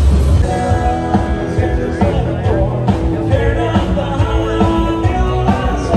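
Music playing: a song with held notes over a steady accompaniment.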